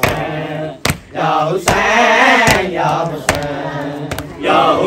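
Men chanting a noha, a Muharram lament, in a drawn-out melodic line, with sharp beats about every 0.8 seconds keeping time.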